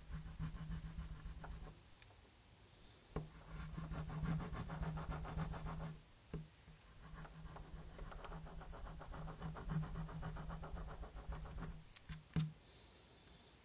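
Quick back-and-forth rubbing on a colored-pencil drawing on paper, lightening and blending the pencil layers, in three stretches with short pauses. A few sharp ticks come in between, two of them close together near the end.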